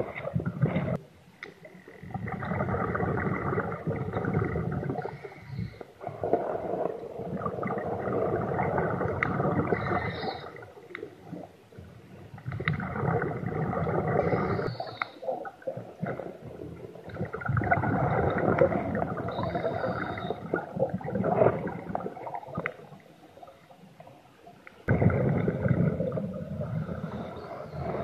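Underwater recording of a scuba diver's exhaled bubbles from a regulator, gurgling in long bursts about every five seconds with quieter pauses between breaths.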